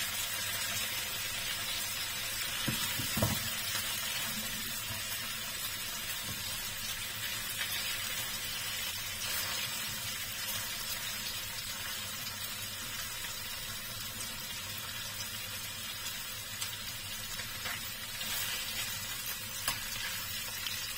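Salmon belly pieces sizzling steadily in oil in a non-stick frying pan while a plastic spatula turns them, the fatty belly releasing plenty of oil. One knock about three seconds in.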